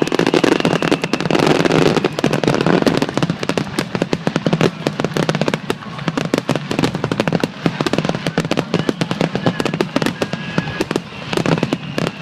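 Aerial fireworks bursting: a dense, rapid crackling of many small pops, loudest in the first few seconds.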